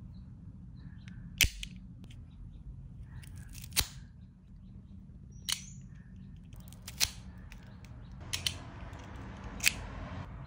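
Handheld cigar cutter clicking: about seven sharp single snaps a second or two apart, two of them in quick succession near the end, as its blade is worked and cuts the head of the cigar. A soft steady hiss comes in over the last two seconds.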